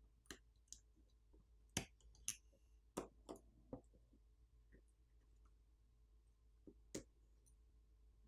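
Scattered light clicks and taps of small tools and parts on a smartphone being disassembled, a handful of sharp ones about two to four seconds in and one more near the end, faint in between.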